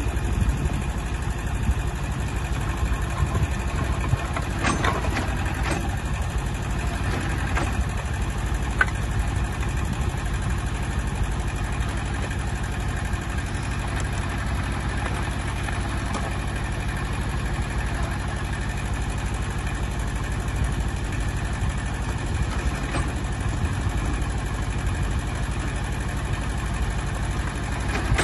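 Gutbrod 2600 DAS compact tractor's engine running steadily while it powers the Geo BH5R rear backhoe. A few short knocks come between about five and nine seconds in.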